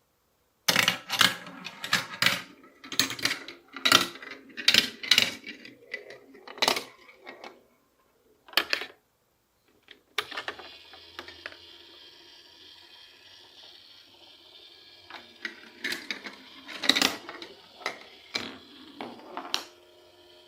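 Marbles running down a block marble run: a quick series of hard clacks and knocks for several seconds, then after a short pause a steady ringing roll with more clacks near the end.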